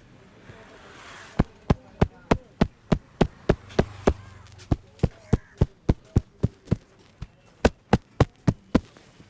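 A barber's hands slapping and tapping rhythmically during an Indian head massage, about three sharp strikes a second, starting about a second and a half in, with a brief pause near the middle.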